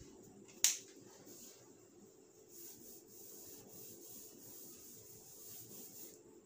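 Cloth wiping marker writing off a whiteboard, a faint uneven rubbing in the second half. A single sharp click about half a second in is the loudest sound.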